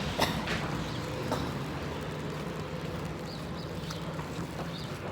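Outdoor street background: a steady low hum of traffic, with a few sharp clicks in the first second and a half and faint short chirps near the end.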